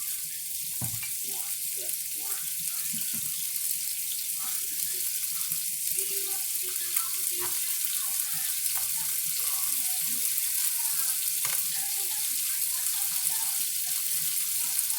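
Meat frying in a pan with a steady high sizzle and a few faint crackles and pops.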